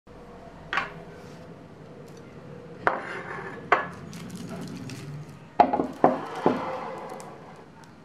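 Painting supplies being set down on a wooden tabletop: a metal palette knife clinks down about a second in, then more items, a plastic palette among them, knock and clatter. There are six sharp knocks in all, some with a short ring, the last three close together near the end.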